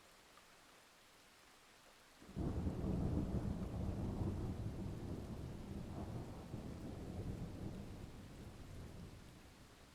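A thunderclap breaking in suddenly after a couple of seconds of faint hiss, then rumbling low and slowly dying away over several seconds.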